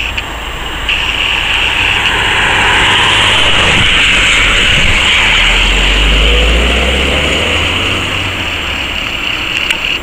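Ambulance passing on an urgent A1 run. The vehicle noise swells to its loudest about six seconds in, with a deep rumble as it goes by, then fades.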